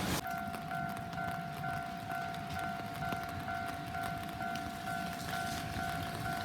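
Japanese railway level crossing's electronic alarm bell ringing in the standard crossing pattern, a steady repeating ding at about two strokes a second, starting abruptly right at the start.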